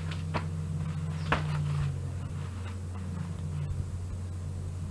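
Steady low electrical or fan-like room hum with a few faint clicks and taps, the clearest about a second in.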